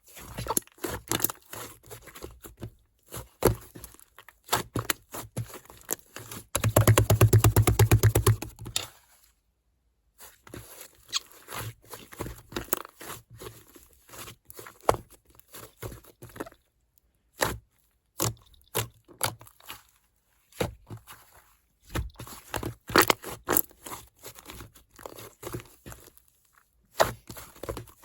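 Clay slime being squished, pressed and stretched by hand, giving sticky clicks, crackles and pops. About a quarter of the way in comes a fast, louder run of popping clicks lasting two to three seconds.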